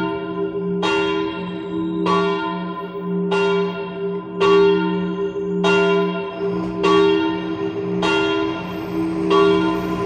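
The smallest of three church bells, thought to be cast by L. Broili in 1956, ringing in full swing (distesa) for the rosary, with a slightly iron-like tone. The clapper strikes evenly, about once every 1.2 seconds, over a steady hum that carries on between strikes.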